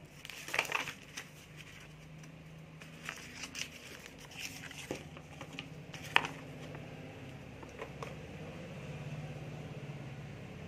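Paper instruction leaflet rustling and crinkling as it is unfolded and handled, with one sharp click about six seconds in, over a faint steady low hum.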